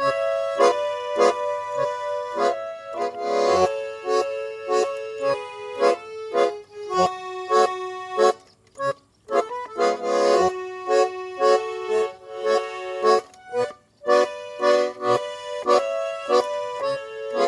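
Garmon (Russian button accordion) playing a tune in short rhythmic chords, with a few brief pauses between phrases.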